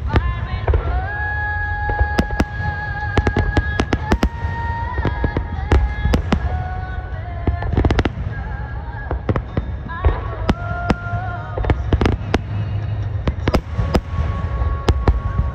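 Aerial fireworks shells bursting in quick succession: a steady run of bangs and sharp cracks over a continuous low rumble. Music with held notes that step from pitch to pitch plays along underneath.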